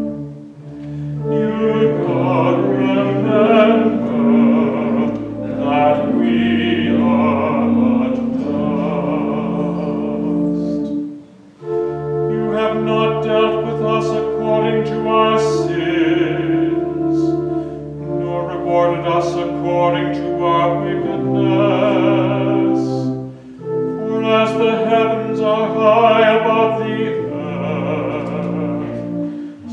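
Church organ playing sustained chords under a singing voice with vibrato, in phrases with short breaks about eleven seconds in and again about twenty-three seconds in.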